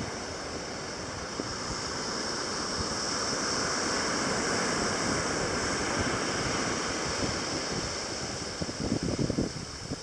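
Surf washing onto a sandy beach, a steady rush that swells in the middle and eases off, with wind buffeting the microphone near the end.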